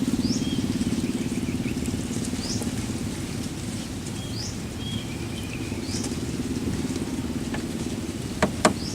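A small engine hums steadily and fades over the first few seconds. Over it a bird repeats a short rising whistle about every two seconds, with shorter chirps in between. Two sharp knocks come near the end.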